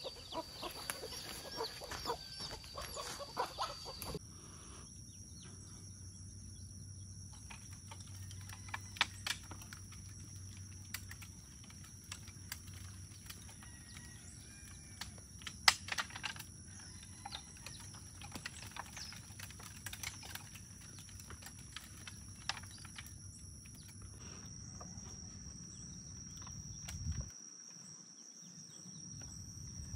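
Chickens clucking in a wire cage for the first few seconds. Then a steady, high insect drone takes over, with scattered light clicks and knocks.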